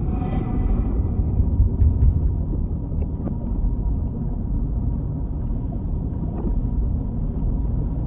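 Underwater ambience for an animated reef scene: a deep, steady rumble with a few faint clicks, and a brief faint shimmer in the first second.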